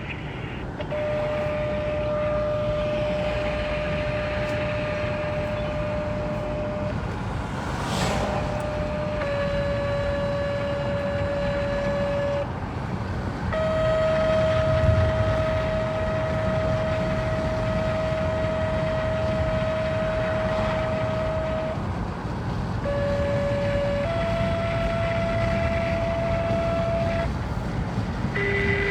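Outdoor tornado warning sirens sounding steady tones that hold for several seconds at a time and jump a little in pitch a few times, over the road noise of a moving vehicle. There is a short crack about eight seconds in and a low thump around fifteen seconds.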